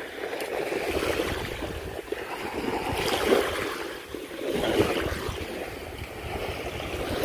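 Wind and water noise by the sea: a steady rushing wash that swells louder twice, about three seconds and nearly five seconds in.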